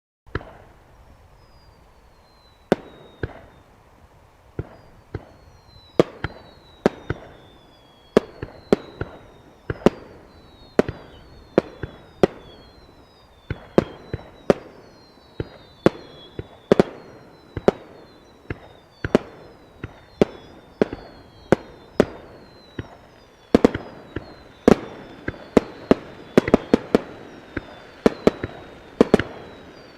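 Fireworks going off in quick succession: sharp bangs about a second apart, many trailed by a whistle that falls in pitch, growing denser and louder over the last several seconds.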